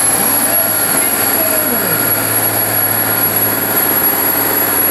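Diesel engine of an old long-nose semi truck running flat out under heavy load as it drags a truck-pulling sled, its front wheels lifted off the track. A loud, steady, dense engine noise.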